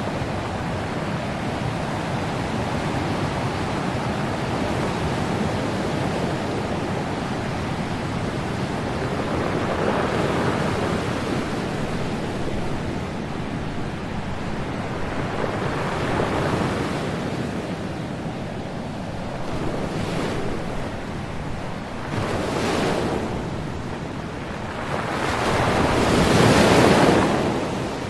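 Ocean surf: a steady rush of waves breaking, swelling in several surges, the loudest near the end.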